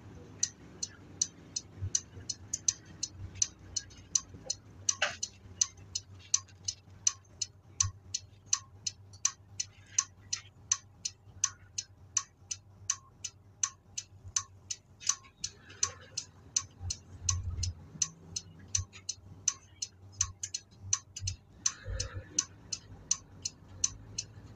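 Flasher relay of a Nissan Diesel city bus clicking steadily for turn signal or hazards, about two and a half clicks a second, over the low hum of the engine. A couple of low thumps come in the second half.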